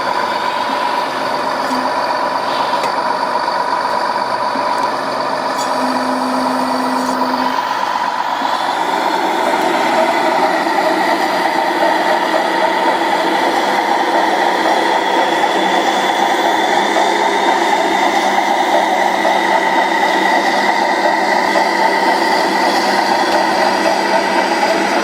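Radio-controlled model Mercedes Actros 6x6 truck running, a steady mechanical whine from its motors and gears with several held tones. About nine seconds in the sound grows busier and a little louder.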